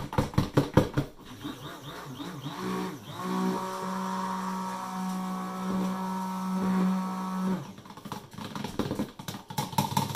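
Handheld stick blender mixing cold-process soap batter in a plastic pitcher. A few seconds in, its motor spins up, runs steadily for about five seconds, then cuts off. Rapid clicking and rattling come before and after the run.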